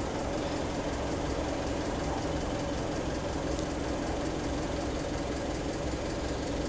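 Steady low mechanical hum with two held tones over a low rumble.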